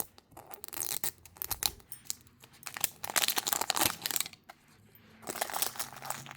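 Blind-box packaging wrapper being torn open and crumpled in the hands: crinkly tearing and rustling in three main spells, with sharp clicks between.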